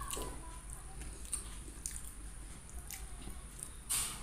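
A person chewing food, with scattered wet mouth clicks and lip smacks and a louder smack about four seconds in.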